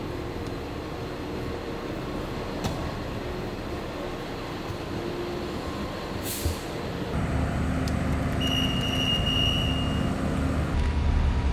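Engine of heavy work machinery running steadily, with the rumble growing louder about seven seconds in. A high steady tone sounds briefly near the end.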